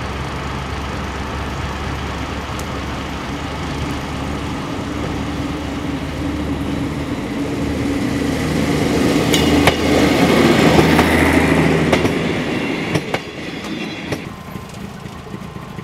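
Diesel railcars running, a steady engine drone that swells as a ČD Class 810 railcar passes close by, loudest about two-thirds of the way through. Its wheels click sharply over rail joints as it passes, and again a few seconds later.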